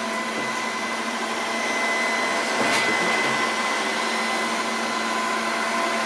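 Robomann 361 robot vacuum cleaner running at maximum suction: a steady whir of its suction fan with a constant high-pitched whine over it.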